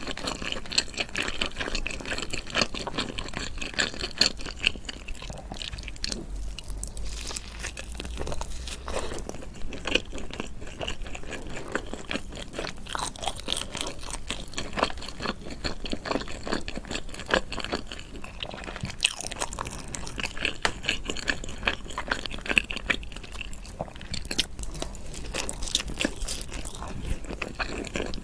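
A person chewing and crunching food in close-up, a dense, irregular run of crisp crunches and mouth clicks.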